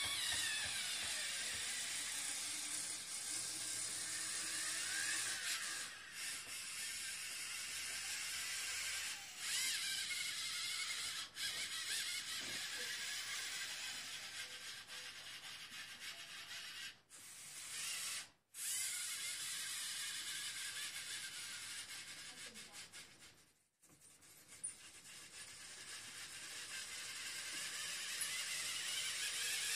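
LEGO Mindstorms EV3 motors and plastic gear trains of a robotic arm whirring as it moves, the whine rising and falling in pitch as the motors speed up and slow down. The sound drops out briefly a few times in the second half.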